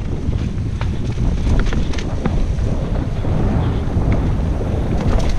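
Rushing wind buffeting a helmet-mounted camera's microphone on a fast mountain bike descent, a steady low rumble. Scattered sharp clicks and rattles from the bike running over the rough dirt trail, a cluster near the end.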